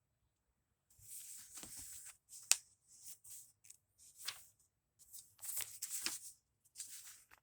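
Thin Bible pages being turned: a string of short papery rustles and flicks with a few sharp snaps, starting about a second in.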